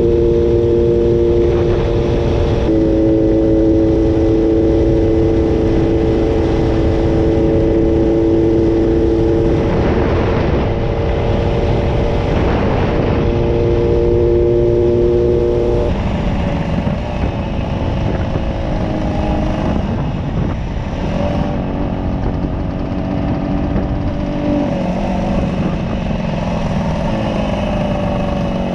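Yamaha YDS3's air-cooled two-stroke parallel-twin engine running at a steady cruising speed, with heavy wind noise on the microphone. A little over halfway through, the engine note changes and eases off, then climbs again near the end. The bike is running on carburettors with matching, correct needle jets.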